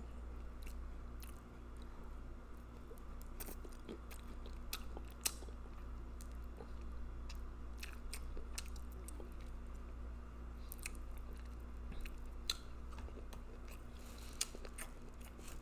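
Close-miked chewing and lip smacking of spicy seafood boil food, with scattered sharp wet mouth clicks, over a low steady hum.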